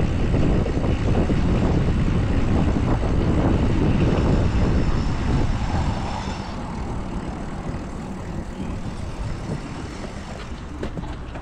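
Loud rumble of street traffic mixed with wind on the microphone of a moving bicycle, easing and getting quieter about halfway through.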